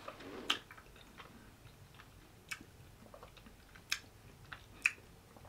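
A person eating ice cream off a metal spoon: quiet mouth and chewing sounds, with a handful of sharp clicks scattered through.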